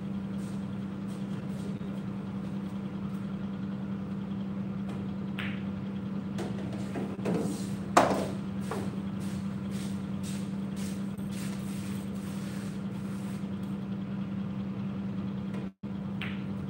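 Steady low hum in a pool hall, with a sharp click about eight seconds in as a cue strikes the cue ball and the balls collide, plus a few fainter clicks.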